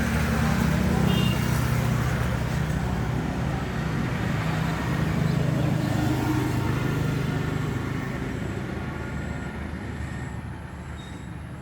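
Road traffic noise: a motor vehicle's engine running with a steady low hum. It fades away over the last few seconds.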